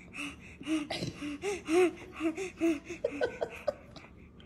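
A baby making a quick run of short, breathy, excited gasping vocal sounds, about eight in three seconds, as cheese is held out to him; they stop shortly before the end.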